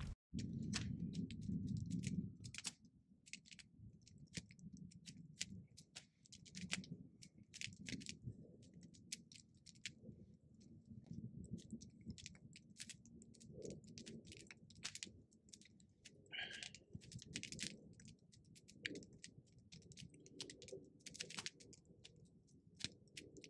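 Wood campfire burning, crackling and popping in irregular sharp snaps over a low rumble of the flames. The rumble is louder for the first couple of seconds.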